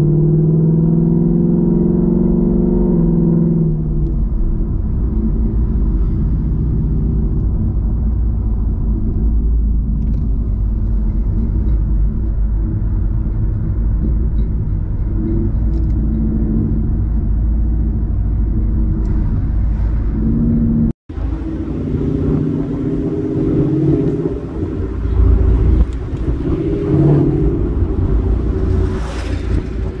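Ford Mustang GT's V8 engine and exhaust cruising at road speed: a steady low drone with road and tyre noise, the engine note clearest in the first few seconds. About two-thirds of the way through the sound cuts out for an instant, then returns less even, with rushing air.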